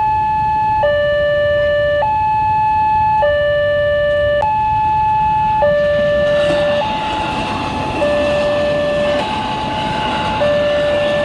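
Railway level-crossing warning siren sounding a steady two-tone hi-lo alarm, each tone held about a second, signalling an approaching train. About halfway through, the noise of a passing train builds up under it.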